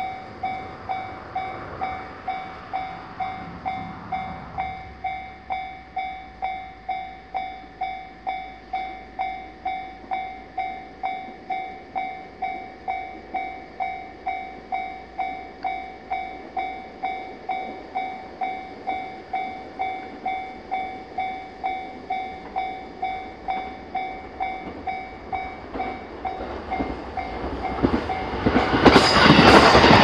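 Japanese level-crossing warning bell ringing steadily, an electronic ding struck about twice a second. About two seconds before the end, a train rushes in over the crossing and the noise of its wheels on the rails swamps the bell.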